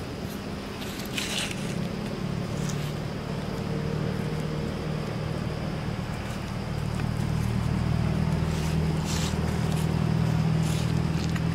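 Steady low hum of a running engine, a little louder in the second half, with a few brief hissy noises about a second in and again near the end.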